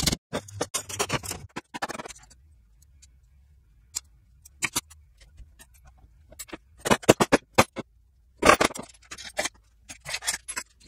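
Metal parts clinking and clattering on a steel bench plate in several short bursts, with a quieter gap in the middle where only a couple of single clicks sound.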